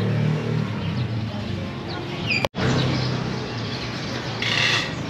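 Outdoor street-market ambience: a low hum of distant voices and traffic, with a few short chirps. About halfway through, the sound drops out suddenly at an edit cut, then the murmur resumes with a brief hiss near the end.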